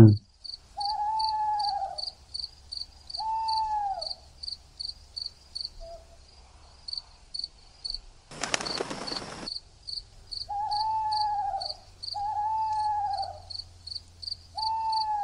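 Crickets chirping in an even rhythm, about three chirps a second, with a hooting call repeating five times over them. A short burst of hiss comes about eight seconds in.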